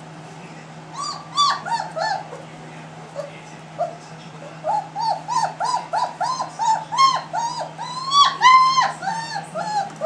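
Three-week-old German Shepherd puppy whimpering and yipping in short high cries: a few about a second in, then a steady run of them at about three a second through the second half.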